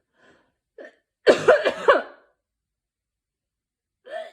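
A person with a sore throat coughing: a quick run of about four coughs about a second in, with a few fainter short sounds before and after it.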